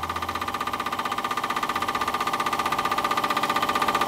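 Scratch-built overtype model steam engine running under steam, with a fast, even beat of exhaust chuffs that grows slightly louder.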